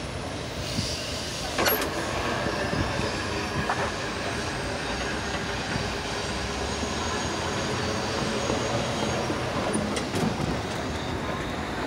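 CSX freight train's cars rolling along the rails, a steady rumble of wheels on track with faint thin wheel squeal running through it and a sharp click a little under two seconds in.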